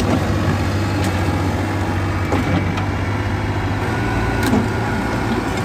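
Diesel engine of a Yanmar ViO40-2 mini excavator running steadily, a low even hum.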